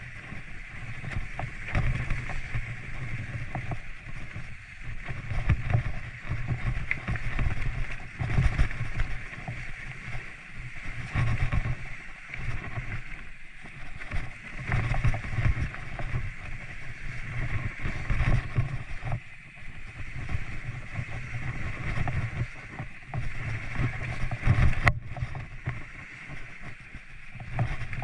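Mountain bike riding a rough trail: tyre noise with wind buffeting the microphone in uneven gusts, and one sharp knock near the end.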